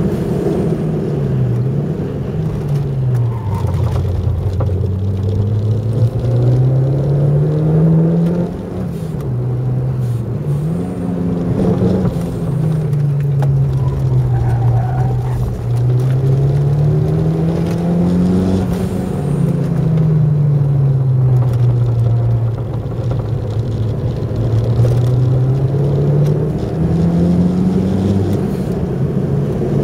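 Car engine heard from inside the cabin at speed, its revs climbing and dropping back again and again as the car accelerates and slows along the track.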